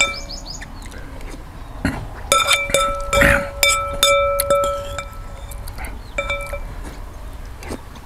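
Metal spoon clinking against a bowl of noodle soup while eating, a string of short clinks. Several of them leave a clear ringing tone like a small bell or chime, the longest starting just over two seconds in and fading about two and a half seconds later.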